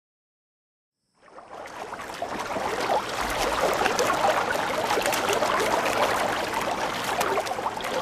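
Water splashing and trickling, a dense crackle of small droplets. It fades in about a second in and then runs on steadily.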